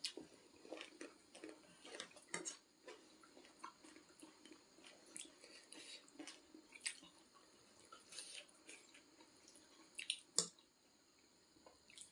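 Faint eating sounds of someone eating ramen: small wet slurps and chewing, with scattered soft clicks. The loudest click comes about ten seconds in.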